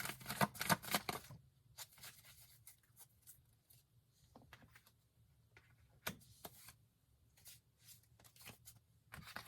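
Tarot cards being shuffled, a dense run of quick clicks for about the first second, then quieter handling of the cards with scattered soft taps and flicks.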